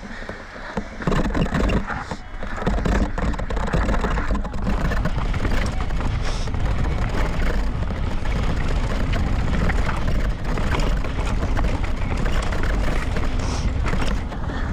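Mountain bike riding fast down a rough, rocky dirt trail: tyres grinding over dirt and stones and the bike rattling over the bumps, with heavy wind buffeting on the microphone. It gets loud about a second in and stays loud.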